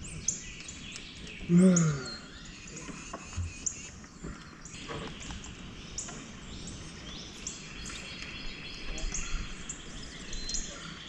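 Small birds chirping, a steady run of short, high, falling notes repeating over and over. A brief spoken sound from a man comes about a second and a half in.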